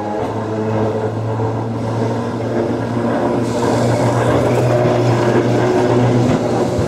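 Vintage double-deck electric tram passing close by: a steady electric hum with wheel-on-rail running noise that grows louder about halfway through as it draws alongside.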